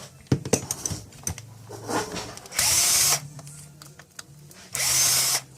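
Cordless drill/screwdriver triggered twice in short bursts of about half a second each, about two seconds apart. Clicks and handling knocks come before the runs.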